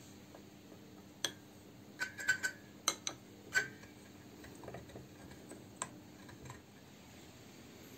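A run of sharp metal clicks and taps, several close together, as a rod is pushed down into a Mini brake master cylinder's bore against the secondary piston and its spring.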